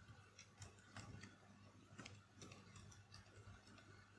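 Faint, irregular computer keyboard clicks over a low steady hum.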